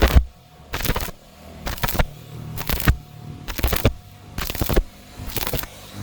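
Background music with a steady beat, a loud hit a little under once a second.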